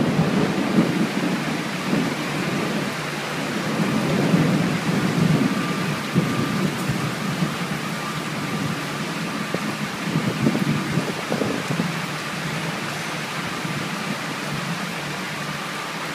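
Heavy rain pouring down on a sheet-metal roof and a wet yard, a steady hiss with low rumbling swells that come and go, strongest in the first few seconds and again about ten seconds in.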